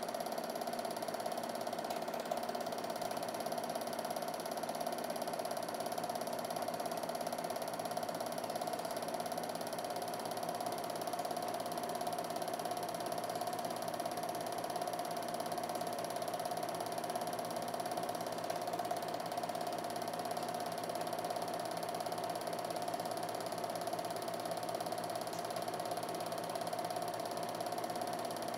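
Film projector running steadily during a transfer of silent home-movie film: a continuous mechanical whir and clatter from the motor and film-advance mechanism, with a strong steady whirring tone.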